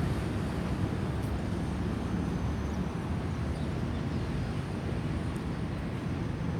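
Boeing 737-800's CFM56 jet engines heard as a steady low rumble on final approach, easing slightly about three seconds in.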